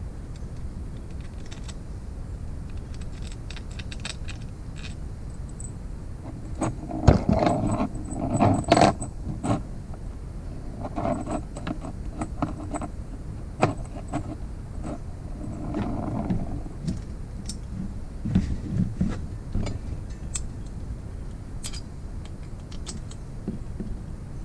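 Metal engine parts and tools clinking and knocking as a motorized-bike engine is taken apart by hand: scattered light clicks, with several bunches of louder clanks.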